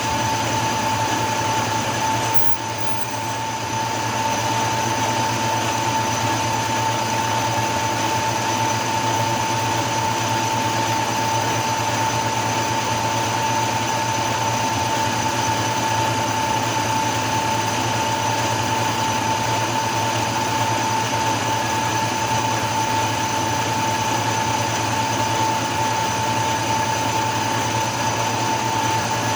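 Machine-shop lathe running steadily with a constant high whine while a drill bores out a stripped bolt hole in an aluminum cylinder head. The sound dips briefly about two and a half seconds in.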